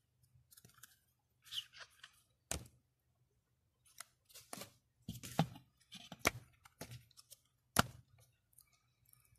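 Hands handling a small paper flip book: pages rustling and riffling, with several sharp clicks as the booklet is turned and its pages snap past.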